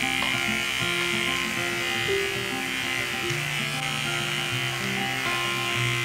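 Electric dog-grooming clippers buzzing steadily as they clip the fur at a Bichon Frise's stop between the eyes, under background music with changing notes.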